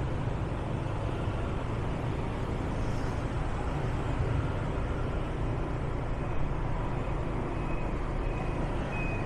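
Steady city traffic noise heard from a moving vehicle: a continuous low engine and road rumble, with a few faint short high tones near the end.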